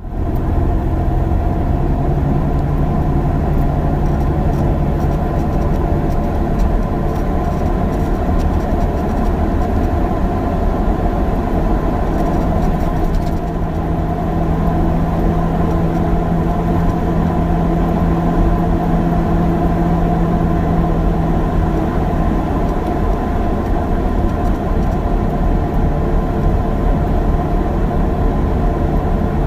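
Interior of an old, noisy bus on the move: the engine runs steadily under a constant road rumble from a poorly paved surface, with faint rattles and squeaks from the seats. The engine note shifts in pitch a couple of times as the bus changes speed.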